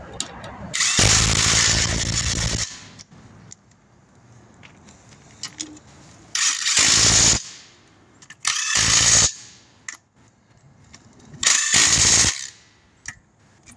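Impact wrench on wheel lug nuts, run in four short bursts of one to two seconds each, the first the longest.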